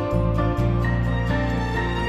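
Background music: sustained chords that change every second or so, with a light regular tick.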